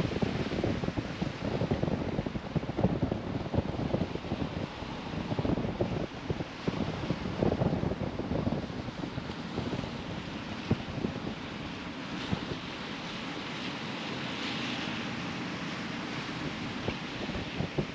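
Wind gusting across the microphone over ocean surf washing on a rocky shore. The gusts ease about halfway through, leaving a steadier wash of surf.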